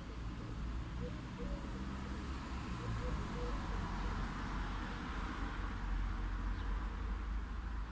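Light city traffic: a steady low rumble of distant vehicles, with one passing that swells and fades in the middle. A few faint short chirps come in the first seconds.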